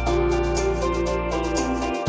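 Instrumental background music: a held bass note under a light, steady, repeating percussion pattern. The bass drops out for a moment near the end before a new note comes in.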